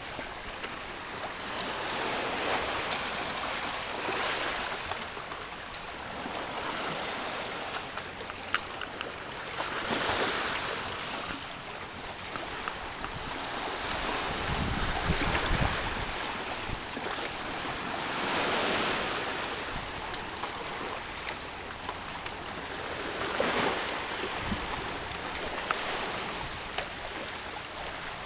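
Small sea waves washing in over rocks and shingle at the water's edge, the swash swelling and fading every few seconds, with a few sharp little ticks.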